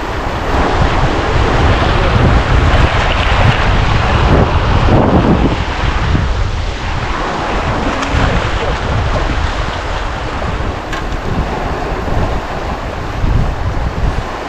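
Heavy wind buffeting the microphone over a steady rush of sea water.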